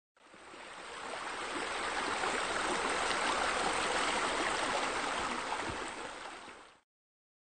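Steady sound of running water, fading in over the first second or so and fading out to a stop near the end.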